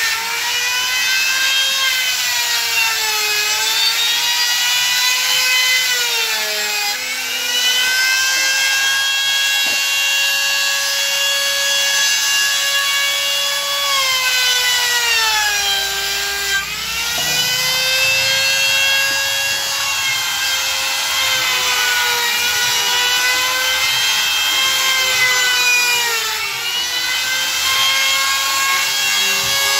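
Handheld electric trim router running continuously while it rounds over the edges of a wooden chair frame into a half-round profile. Its high whine sags in pitch again and again as the bit bites into the wood, and climbs back as it frees.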